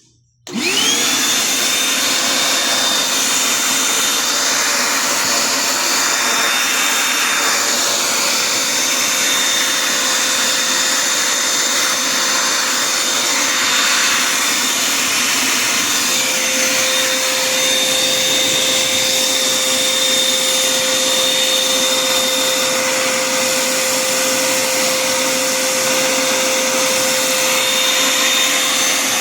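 Repaired car vacuum cleaner switched on about half a second in: its motor spins up with a rising whine, then runs steadily with a high-pitched whine over a loud suction rush.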